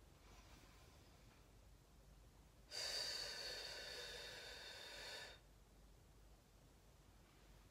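A person breathing out hard in one long breath of about two and a half seconds, as part of qigong practice. It starts suddenly and fades a little before it stops, with a faint breath about two seconds before it.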